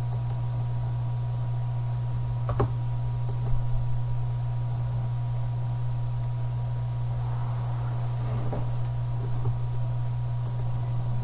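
Steady low electrical hum with a faint high steady tone above it, and a single click about two and a half seconds in.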